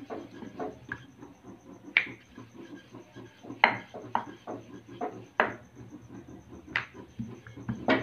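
Chapati dough being rolled out with a wooden rolling pin on a round wooden board: a low rolling rumble broken by about half a dozen irregular sharp wooden knocks as the pin and board clack.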